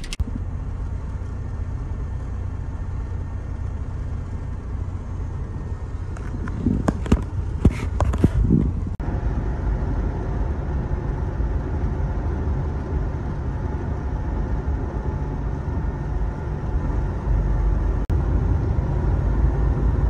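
Steady low rumble of a semi truck heard from inside the cab, engine and road noise together. A short cluster of sharp knocks and rattles comes about seven to eight seconds in.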